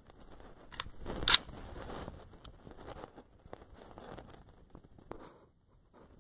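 Rustle and scrape of a rifle being raised and shouldered, with clothing and sling movement and a single sharp clack a little over a second in.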